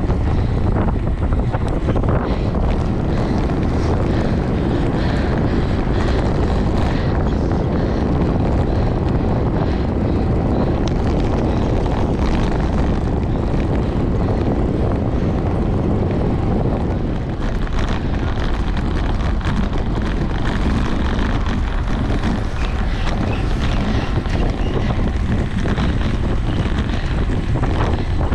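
Steady wind rushing over the microphone of a camera mounted on a bicycle ridden at racing speed. It eases briefly about two-thirds of the way through.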